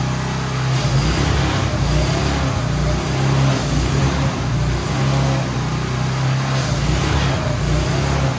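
Honda GX270 single-cylinder engine of a tracked dumper running steadily at an even pitch while its hydraulic tipping bucket is raised and lowered.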